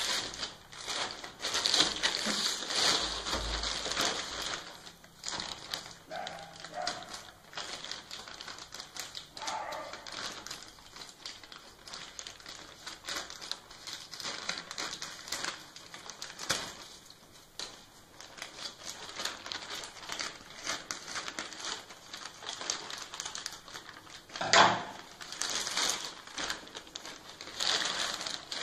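Plastic courier mailer bag crinkling and crackling as it is handled and pulled open by hand, with irregular rustles and one louder crackle a few seconds before the end.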